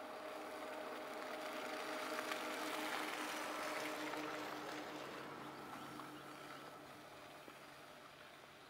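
A car driving through snow, its tyres hissing on the packed snow and slush, growing louder to a peak a few seconds in and then fading as it moves away. A steady low hum runs underneath.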